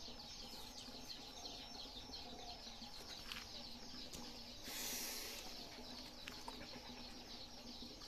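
Birds chirping steadily in rapid, overlapping calls, with a short rustling hiss about five seconds in.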